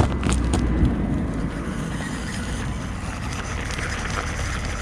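Panda Hobby Tetra X2 1/18 mini RC crawler running on its electric motor and gears as it crawls over loose rocks, with a few sharp clicks of stones in the first second. Wind on the microphone adds a steady low rumble.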